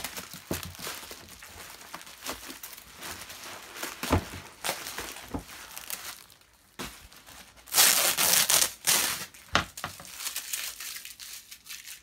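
Bubble wrap and packing tape being pulled off a packed vacuum cleaner: irregular crinkling and rustling of plastic, loudest and densest about eight to nine and a half seconds in.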